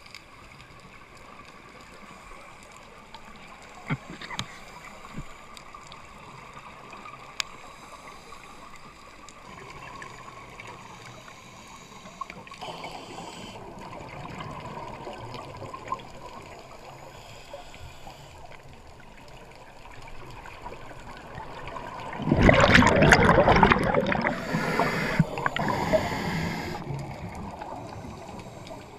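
Underwater sound heard from a mask-mounted camera: a scuba diver's exhaled bubbles from the regulator rushing and gurgling past, loudest in a long burst about three-quarters of the way through, over a low steady water hiss with a few small clicks.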